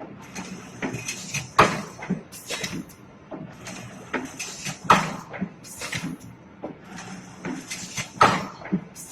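Wire hanger-making machine running: sharp mechanical knocks and clacks about once a second over a low steady hum, with the loudest strikes every one to three seconds.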